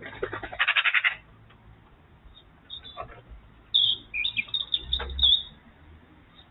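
Wild birds calling: a rapid chattering burst in the first second, then scattered high chirps and short whistled calls from about three seconds in.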